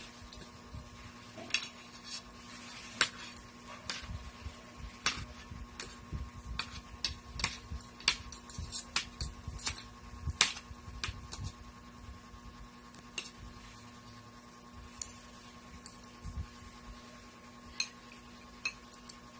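Metal spoon and fork clinking and scraping against a plate while eating rice, in quick irregular clicks that come thick for the first ten seconds or so, then thin out. A steady low hum runs underneath.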